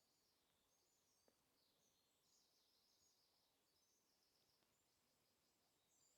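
Near silence in a forest, with faint, distant high-pitched bird chirping and one faint click about a second in.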